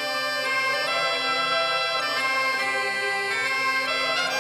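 Bagpipe music: a melody played over a steady, unbroken drone.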